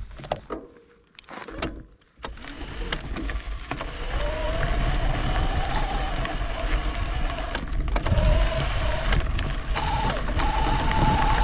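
E-bike in motion: a steady low rumble of riding, with a motor whine that rises in pitch from about four seconds in and settles on a higher steady note near the end. The first two seconds are quieter, with a few clicks.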